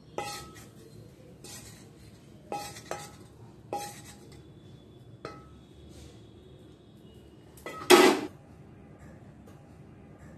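Wooden spatula knocking and scraping a metal kadai to tip fried tempering out onto chutney: about eight sharp knocks, each with a brief metallic ring from the pan, spread irregularly, with a louder clunk about eight seconds in.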